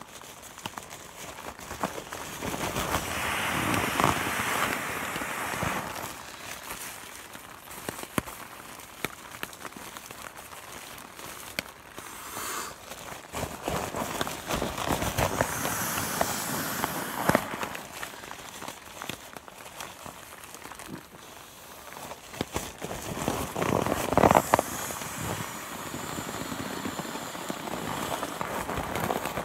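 Nylon stuff sack and its padded contents rustling and crinkling as they are crammed and pressed down by hand. There are three louder bouts of handling: a few seconds in, midway, and toward the end.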